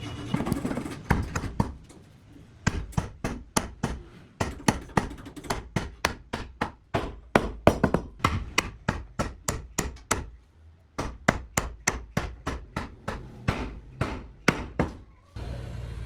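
Rapid series of hammer strikes on wood, about three to four blows a second in runs with short pauses.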